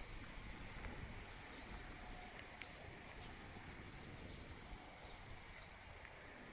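Faint outdoor ambience: steady low wind rumble, with a few short, high bird chirps here and there.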